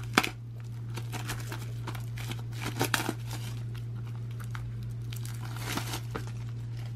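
Clear plastic shrink wrap being torn and peeled off a Blu-ray case, crinkling and crackling. There is a sharp tear just after the start, and louder crinkles around three seconds in and again near the end as the wrap is pulled free.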